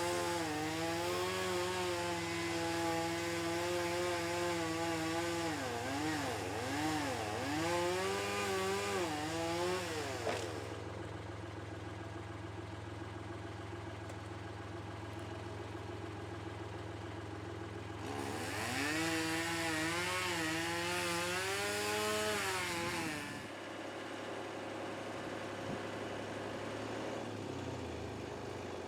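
Chainsaw running in two spells, a long one and a shorter one after a pause, its pitch dipping and recovering as it bites into wood. A steady low engine drone runs underneath and stops after the second spell.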